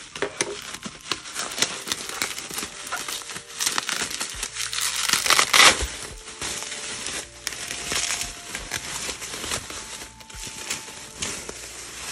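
Plastic bubble wrap crinkling and crackling as it is handled and pulled away from a package by hand. The crackle is dense throughout and loudest about halfway through.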